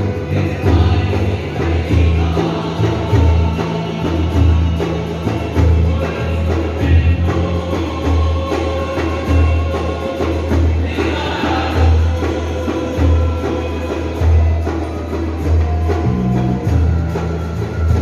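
Background music with a steady bass beat and singing.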